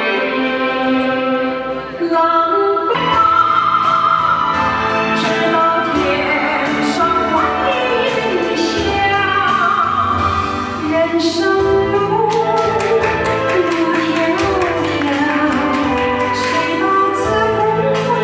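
Music with a woman singing a gliding melodic line. A beat comes in about three seconds in, after a brief lull.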